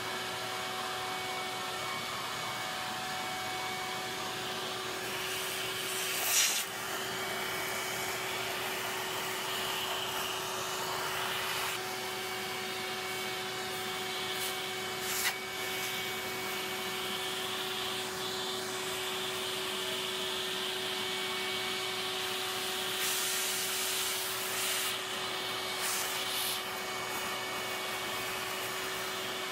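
Shop vacuum running steadily with a constant hum, its hose sucking up wood shavings and dust from a wood lathe's bed. The sound briefly gets louder a few times as the nozzle picks up material.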